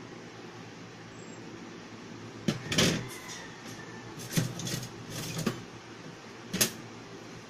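A few knocks and clatters of household objects being handled: a burst about two and a half seconds in, another run of clatters around the middle, and one sharp knock near the end, over a steady background hiss.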